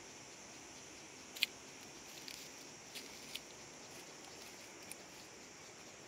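Footsteps on dry leaf litter and rocks: a few faint scattered crackles and clicks, the sharpest about a second and a half in. Under them a faint steady high insect drone.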